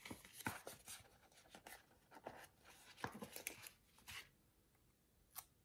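Faint rustling and crackling of a paper sticker sheet being handled and flexed, with scattered light clicks and a sharper click near the end.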